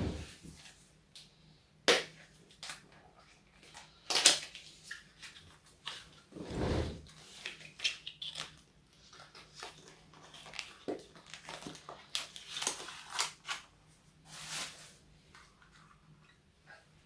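Small cardboard box and clear plastic packaging being opened and handled: irregular crinkling and rustling with sharp clicks.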